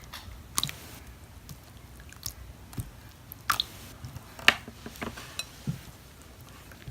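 Sticky, wet glue-and-borax slime being squished and stirred, giving a string of irregular short wet clicks and pops, the loudest about four and a half seconds in.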